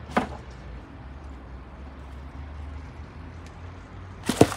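Pieces of tandoor-roasted lamb being dropped into a plastic basin: a thud just after the start and a louder double thud near the end, over a low steady hum.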